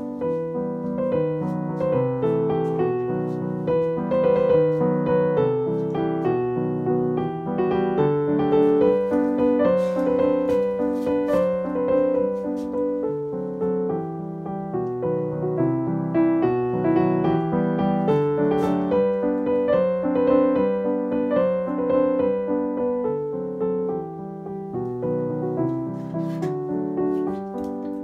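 Background piano music: a gentle melody played in steady flowing notes.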